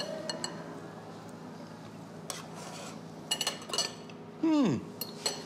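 A knife and fork clink and scrape against a white ceramic bowl in scattered light clinks while a man cuts and eats. About four and a half seconds in, a man's voice gives a short, falling 'mmm'.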